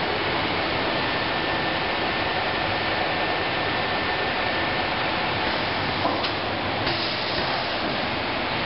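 Steady, even hiss of a factory production line, its belt conveyors for wooden window parts running. A faint thin whine comes in about a second in and stops around the middle, and there is a light click a little after it.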